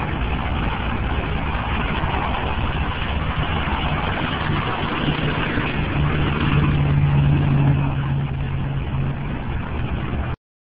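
City street traffic heard through a cell phone's microphone: a steady rush of vehicle noise, with a low engine hum that swells from about six to nine seconds in. The sound cuts off suddenly near the end.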